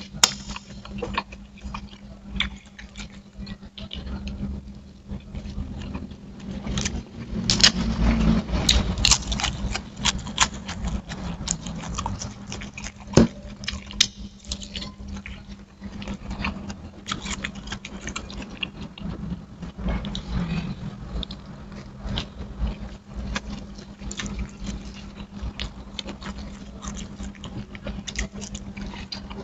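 Close-up eating sounds of a man chewing and smacking his lips as he eats rice and fried chicken with his fingers, in irregular small clicks and wet smacks. A low steady hum runs underneath.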